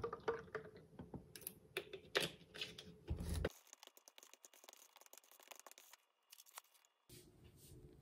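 Small kitchen handling sounds of making a cup of Buldak spicy instant noodles: sauce packets rustling and being opened, then chopsticks ticking against the paper cup as the sauce is stirred in. The clicks and rustles are loudest in the first few seconds and fade to faint ticks after that.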